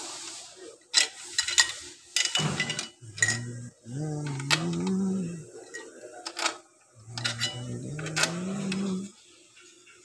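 Small metal parts clicking and clinking sharply a handful of times as they are fitted by hand onto the metal case of a 2020 Toyota RAV4 CVT being assembled. A voice holds a few drawn-out, slowly rising notes in between, without words.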